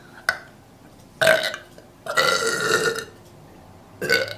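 A woman burping: a long belch of about a second starting some two seconds in, with shorter bursts before and after it.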